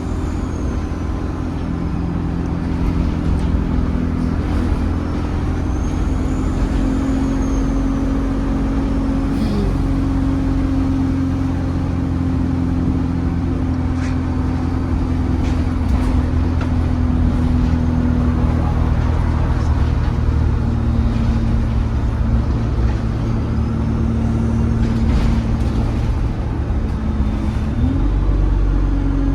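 ADL Enviro 200 single-deck bus's diesel engine heard from on board while under way: a steady engine drone with a high turbo whistle that rises and falls a few times.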